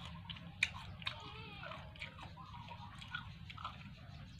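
Chewing and biting of crunchy unripe green mango with rice, with a sharp crunch about half a second in and another about a second in. Faint high chirps in the background.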